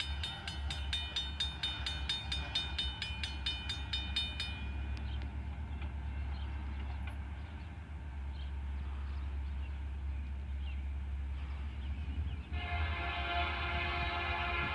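A distant diesel locomotive horn, from the approaching train's lead ex-Santa Fe SD75M, starts about twelve and a half seconds in and holds a steady multi-note chord. It sounds over a low, steady rumble. Earlier, a rapidly repeating grade-crossing bell rings and stops about four and a half seconds in.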